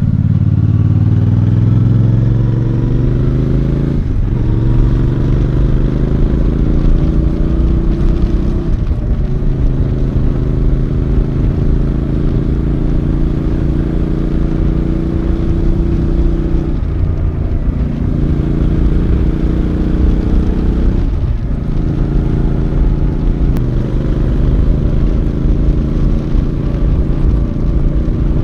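Royal Enfield Bear 650's 648cc parallel-twin engine under way, revs climbing in the first few seconds. Four brief dips and breaks in pitch mark gear changes, with steadier running between them.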